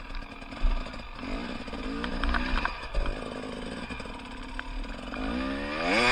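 Off-road enduro motorcycle engine revving up and down as it is ridden over rough ground, climbing steeply in pitch about five seconds in, with knocks and clatter.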